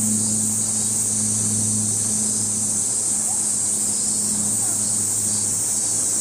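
Steady high-pitched drone of a summer cicada chorus, with a low steady hum underneath.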